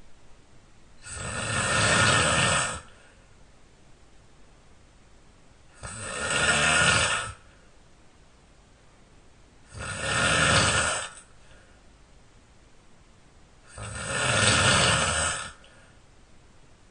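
A person snoring loudly, four long snores about four seconds apart, each swelling and then cutting off.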